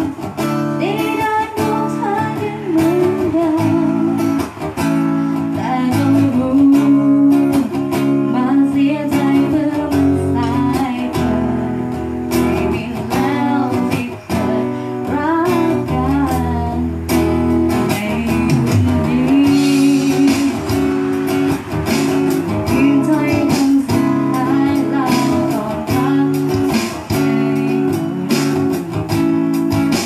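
Live music: a guitar played steadily under a singing voice, sounding without a break.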